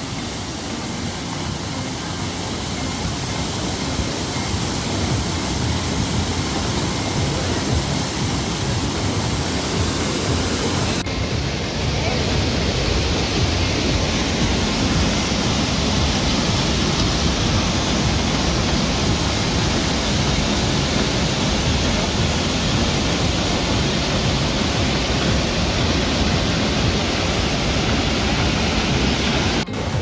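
Waterfall and river cascade water rushing over rocks: a steady, loud rush. About 11 s in it cuts abruptly to a brighter hiss of white water pouring between boulders.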